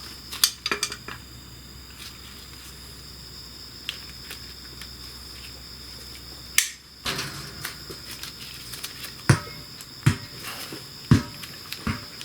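Irregular metallic clicks and knocks as motorcycle gear-shift linkage parts are worked loose and pulled off by hand, with several sharper knocks in the second half.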